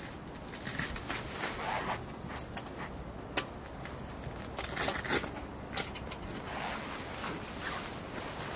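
Gear being handled: rustling and scraping, with several short sharp clicks through the middle.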